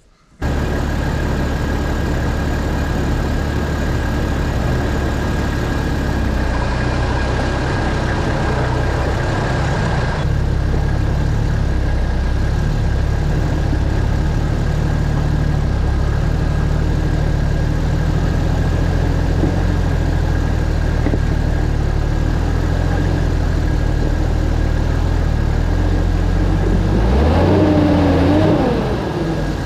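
A four-wheel-drive's diesel engine running as it drives a bush track, steady for most of the time, with a brief rise in revs near the end.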